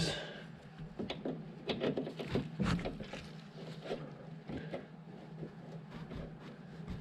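Pliers working a fuel-line clamp and rubber fuel line back onto a snowblower carburetor: scattered light clicks and small knocks, most of them in the first half, over a steady low hum.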